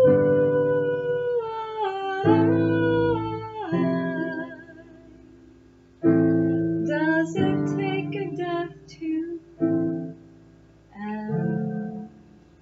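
A woman singing over chords played on a digital piano, the chords struck every few seconds. Her voice holds and slides between notes, and the last chord dies away near the end as the song finishes.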